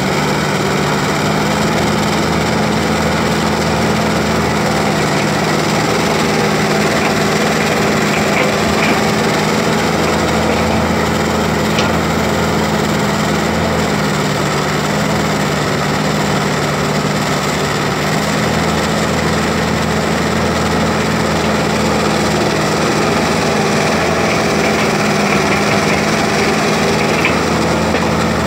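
An old excavator's diesel engine runs steadily under working load, its pitch shifting slightly up and down, with a few faint clicks and knocks over it.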